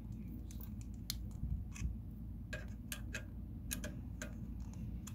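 Small screwdriver turning a mounting screw into the metal bracket of a Cooler Master Hyper 212 CPU cooler: irregular small clicks and ticks as the bit works the screw.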